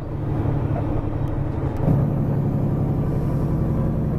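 Diesel engine of a semi truck heard from inside the cab while driving, a steady low drone that gets louder and changes pitch about two seconds in.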